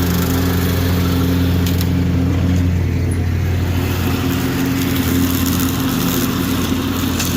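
John Deere D120 lawn tractor's Briggs & Stratton V-twin engine running steadily. This is after its no-start was fixed by clearing mouse-nest debris out of the engine, and it sounds good.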